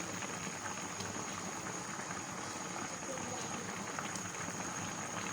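Pot of chicken feet soup boiling on the stove: a steady bubbling and crackling simmer.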